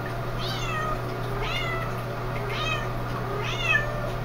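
A kitten in bathwater mewing repeatedly, four high cries about a second apart, each rising briefly then falling in pitch: distress calls from a kitten in the water.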